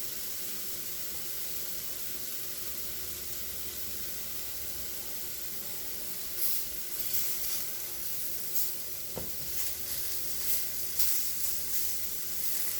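Chicken frying in a hot pan, a steady sizzle that breaks into spitting crackles from about halfway through. A single knock comes about nine seconds in.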